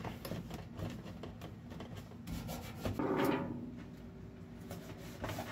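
Poster-board template being handled and pressed into place by hand: faint paper rubbing and rustling, with a louder scraping rasp about three seconds in.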